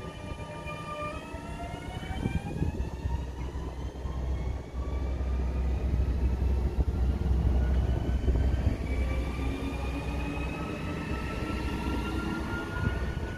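Blue Pågatåg electric commuter train pulling away from the platform, its electric traction motors rising in a whine as it accelerates, over a low rumble of the train. The whine climbs in pitch in the first couple of seconds and again from about two-thirds of the way through.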